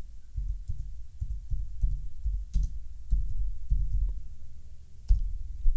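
Typing on a computer keyboard, heard as an uneven run of dull low thumps, with a sharper click about two and a half seconds in and another near the end.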